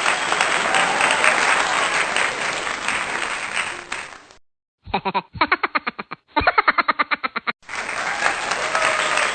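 Crowd applause, a dense steady clatter of clapping, which stops about four seconds in. After a brief silence comes a short stretch of a rapidly pulsing, pitched voice-like sound, and then the applause starts again near the end.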